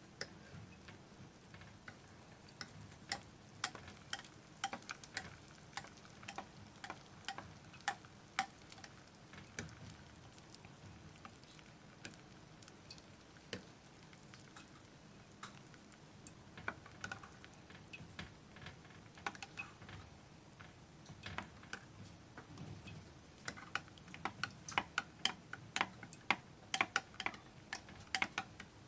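A metal spoon stirring hot chocolate in a glass mug, clinking lightly and irregularly against the glass, with the clinks coming thicker near the end.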